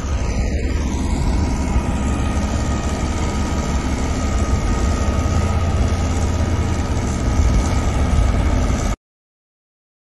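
Heavy diesel construction machinery running steadily, a tipper truck and a single-drum road roller, with a strong low rumble. The sound cuts off suddenly about nine seconds in.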